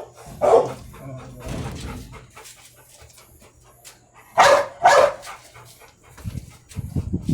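Pit bull barking: one bark about half a second in, then two louder barks in quick succession past the middle. Low rumbling movement noise near the end.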